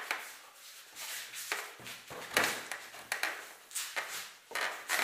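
Half-inch (#4) rebar being bent by hand around a wooden half-round bending form on a steel table: the bar scrapes and knocks against the jig and tabletop, about half a dozen sharp knocks with scraping between them.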